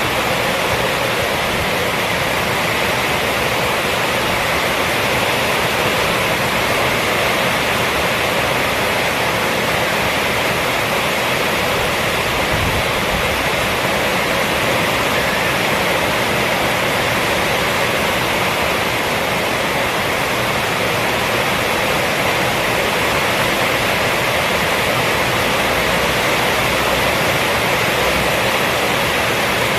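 Rainstorm on a roof: heavy rain falling steadily and evenly, with no letup.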